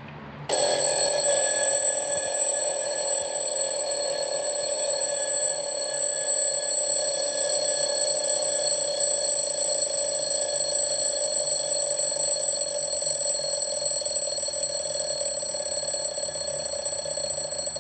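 Equity alarm clock going off, a really loud, steady alarm ringing that starts suddenly about half a second in.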